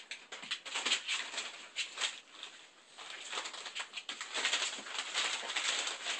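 A pile of puppies squirming and scrambling: a busy run of small scratches, rustles and clicks, easing off briefly midway and then picking up again.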